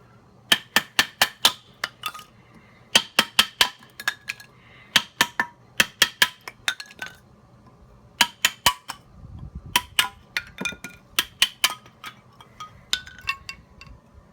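Wooden baton, the cut-off half of an axe handle, striking scrap 2x4 down onto an upturned axe-head kindling splitter in quick runs of blows, splitting it into kindling. Each sharp knock carries a short metallic ring from the axe head.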